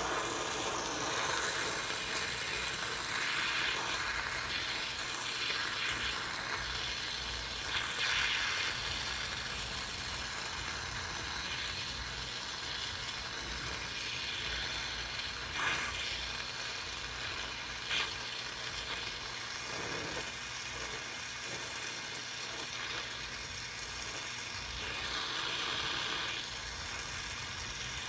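Acetylene torch flame hissing steadily while it heats a copper tube joint for silver soldering, with a few brief clicks along the way.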